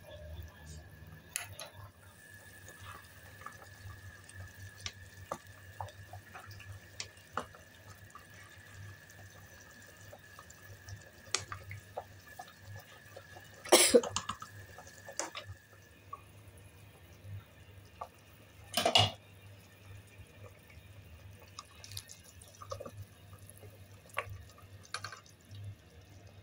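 Pot of Chinese herbal soup simmering on low heat, its bubbles popping in small, irregular clicks. Two louder brief noises come about halfway through and about two-thirds of the way through.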